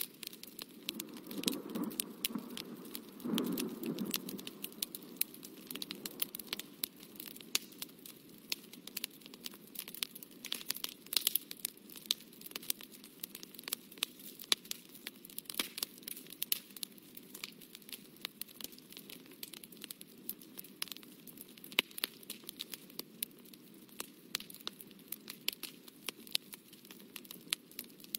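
Irregular scratching and crackling of a drawing tool working on paper, close to the microphone. Many small clicks are scattered throughout, over a soft rustle that is heavier in the first few seconds.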